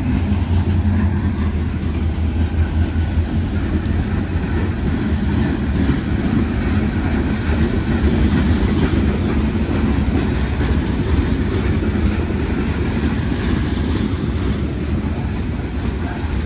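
Wheeling & Lake Erie freight train rolling past. The diesel locomotives' low engine drone fades over the first few seconds, leaving the steady rumble and rattle of open-top hopper cars running over the rails.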